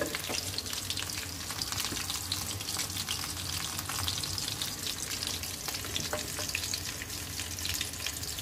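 Batter-coated chicken pieces deep-frying in hot oil in a steel pan: a steady sizzle full of small crackles.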